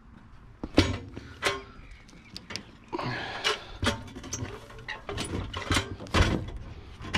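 Knocks, clunks and scraping as a washing machine is tipped back onto a metal hand truck and shifted into place: a string of sharp knocks, with stretches of scraping in between.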